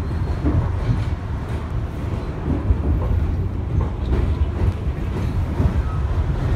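Bombardier-built R62A subway car running along elevated track, heard from inside the car: a steady low rumble of wheels on rail with irregular clatter.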